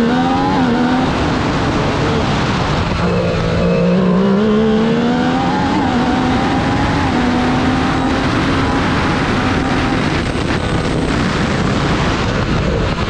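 AFS P4t single-seater hillclimb car's engine heard from onboard, pulling hard up the hill. The revs climb, drop after about a second, build again from about three seconds and hold through the middle. Near the end the engine note sinks under loud wind and road noise before rising again.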